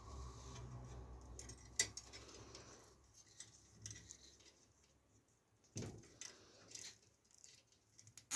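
Scattered light clicks and taps of small hard parts being handled, over a low hum that fades out about three seconds in.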